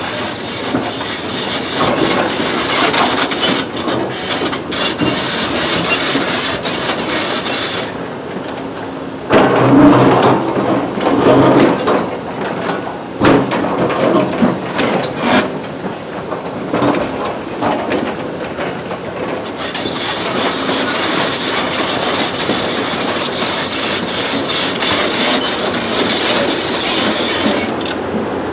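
Excavator tearing up railway track: a steady noisy rumble of machinery with clanks and knocks of metal and wood. The knocking is heaviest and loudest in a stretch through the middle.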